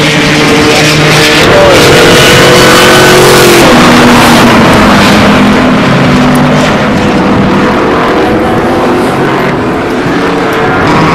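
Supercharged 5.4-litre V8 of a Ford SVT Lightning pickup running hard at speed over a loud, steady rush of noise. The engine note holds high, drops sharply a little under four seconds in, then climbs slowly again.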